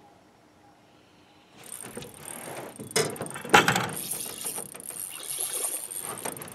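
An angler grabs his rod and sets the hook on a biting walleye. Jacket rustling and handling noise start about a second and a half in, with two sharp knocks half a second apart about three seconds in. A steady high whirr from the spinning reel runs under it as he starts fighting the fish.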